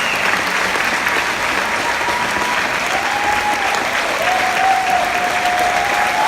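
Concert audience applauding steadily, with a few drawn-out calls from the crowd rising over the clapping in the second half.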